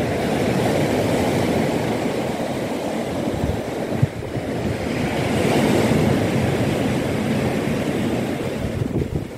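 Sea surf breaking and washing along the beach below, a steady rush that swells about halfway through, mixed with wind on the microphone.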